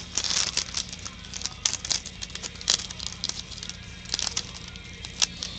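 Foil trading-card pack wrapper crinkling and tearing in the hands, a run of irregular crackles, with a sharper snap near the end.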